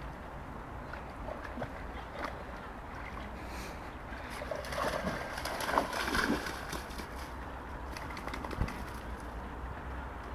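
Dog wading and splashing in shallow river water at the bank, with a cluster of louder splashes about halfway through, over a steady low wind rumble on the microphone.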